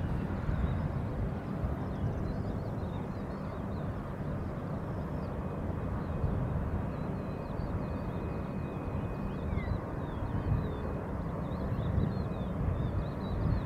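Steady low rumble of a distant jet airliner on the runway, with small birds chirping faintly throughout. A thin steady whine comes in about six seconds in and drops away in pitch near ten seconds.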